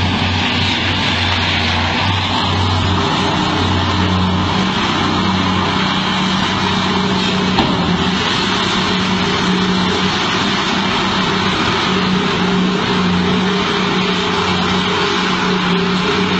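Heavy diesel engines of a large crawler bulldozer and a mining haul truck running steadily under load, a constant low drone within a loud, even rush of noise.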